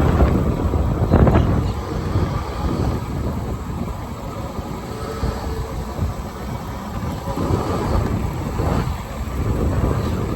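Wind buffeting the microphone over the rumble of an electric golf cart riding along.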